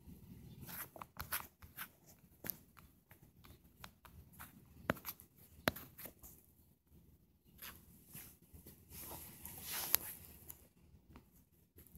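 Faint scattered taps and soft rubbing from fingers working a touchscreen phone, with a brief louder hiss of rubbing about nine to ten seconds in.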